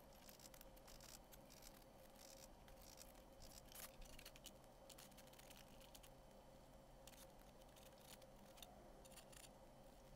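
Faint, irregular scraping and scratching of a putty knife spreading wood filler over the bare wood of a trunk and scooping it from a small pot, over a low steady hum.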